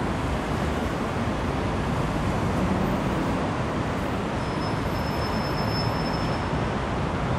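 Steady city traffic noise, heaviest in the low end, with a faint high-pitched whine for a second or so past the middle.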